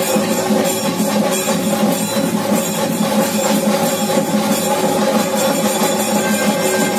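Traditional ritual music for a daiva kola: drums and jingling percussion over a steady held tone, running evenly without a break.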